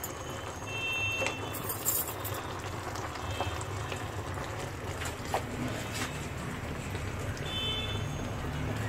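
Wooden spatula stirring thick dal in a metal pan, with scattered light knocks and scrapes against the pan, over a steady low rumble.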